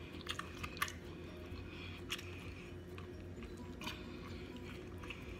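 Close-miked mukbang chewing: a mouth working through food, with a few sharp wet clicks and smacks scattered through, the loudest one near the start, over a steady low hum.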